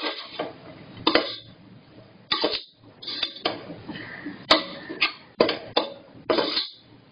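A metal spoon scraping and knocking against the inside of a metal pressure cooker in irregular strokes, stirring vegetables and spice powders as they sauté. There is one sharper click about four and a half seconds in.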